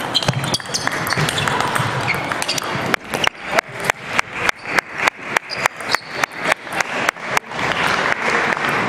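Table tennis ball clicks from the last strokes of a rally at the start, over the hubbub of a hall with other tables in play. From about three seconds in comes a steady run of sharp ball bounces, about three or four a second, lasting some four seconds, as the ball is bounced between points.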